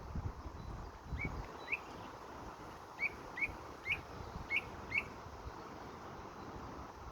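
A songbird, which the uploader takes for a common starling, giving seven short rising chirps: two spaced apart, then five in a quick run about half a second apart.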